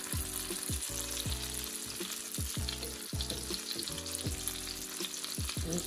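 Stuffed chicken breasts sizzling in a hot frying pan as they brown. Background music with a steady beat runs underneath.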